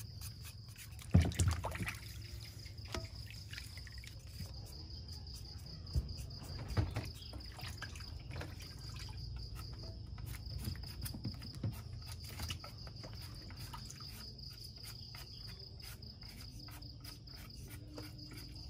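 Night insects chirring steadily in a high pitch, over water sloshing in a plastic basin and the clatter of vegetables and fruit being washed and peeled by hand. There is a sharp knock about a second in and a few more around six to seven seconds.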